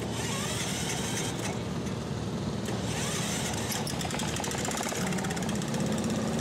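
Wheel Horse garden tractor engine running at idle, with a steadier hum setting in about five seconds in.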